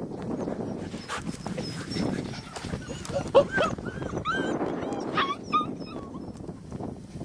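White Swiss Shepherd puppies yipping and whimpering while they play: a cluster of short high-pitched yelps about three seconds in, the loudest of them sharp, and another few about five seconds in.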